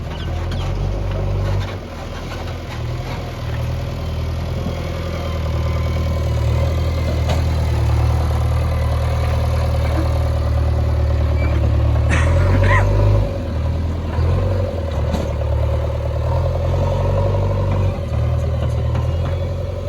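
Diesel engine of a JCB backhoe loader running under changing load, its level rising and falling, with a steady whine over it. A brief clatter comes about twelve seconds in.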